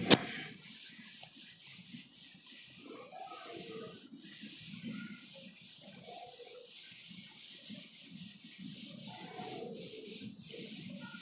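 Chalk being wiped off a chalkboard with a hand-held eraser: a steady scrubbing hiss of repeated back-and-forth strokes. A single sharp knock right at the start is the loudest sound.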